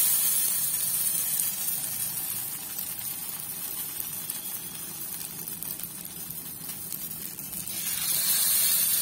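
Hot oil on a tawa sizzling as potato tikkis coated in wet cornflour batter shallow-fry. The hiss is loudest at the start, eases off, then swells again about eight seconds in as another wet tikki is laid in the oil.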